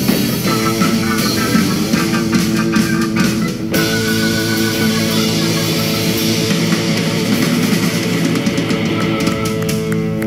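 Live rock band music led by distorted electric guitar over bass guitar, a loud and steady instrumental.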